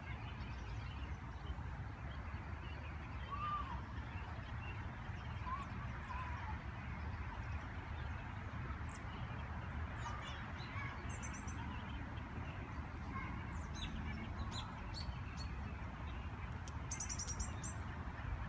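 Outdoor ambience: a steady low rumble, with a few faint short calls in the first few seconds and scattered high-pitched small-bird chirps through the second half, clustering near the end.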